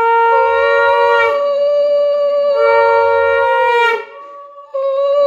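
Conch shell (shankha) blown in long, loud blasts, the note shifting between a lower and a higher pitch. It sags and breaks off about four seconds in for a breath, then a fresh blast starts on the higher note. The blasts are the auspicious call that marks a moment in a Bengali Hindu ritual.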